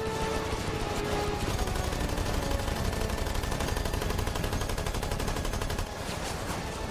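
Rapid, sustained automatic gunfire with music underneath, easing slightly about six seconds in.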